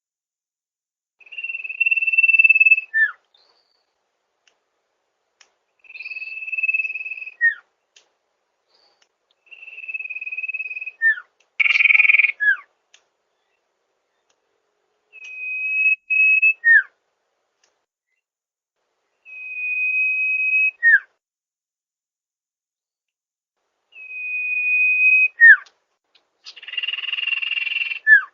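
Sirtu bird calling over and over: a long, steady, high whistle followed by a quick falling note, repeated about every four seconds. Twice, once near the middle and once near the end, the whistle is replaced by a harsher, rougher call.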